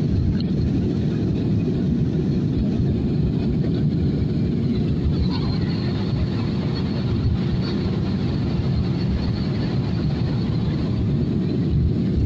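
Steady cabin noise of a jet airliner in flight, heard inside the passenger cabin: engine and airflow noise, mostly a low rumble with a faint hiss above it.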